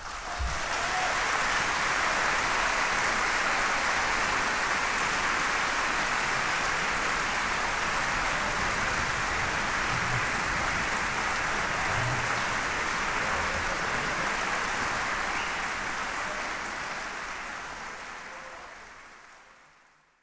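Concert audience applauding steadily, fading out over the last few seconds.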